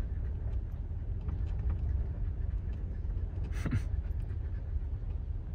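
Steady low rumble of a vehicle driving slowly over a rough, muddy dirt road, heard from inside the cab, with a brief hiss of noise about three and a half seconds in.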